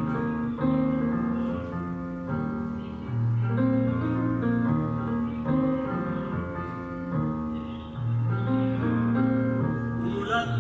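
Piano music: slow held chords changing every second or two over a low bass note.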